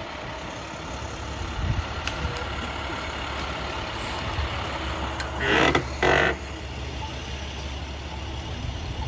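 Heavy tow truck engine idling with a steady low hum, at a street crash scene. A little past halfway, two short louder bursts of noise break in.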